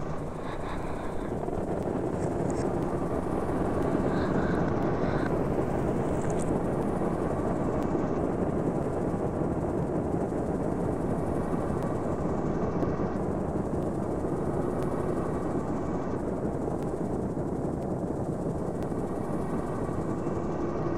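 Steady, dense low rumbling noise drone of an ambient noise soundtrack, with a few brief faint high tones in the first few seconds.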